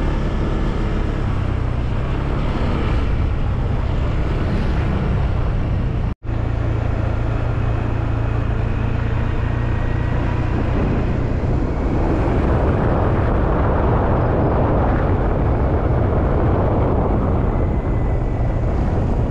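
Vehicle engine running steadily while riding, with wind rushing over the microphone. The sound drops out for an instant about six seconds in, and the wind noise grows louder from about twelve seconds in.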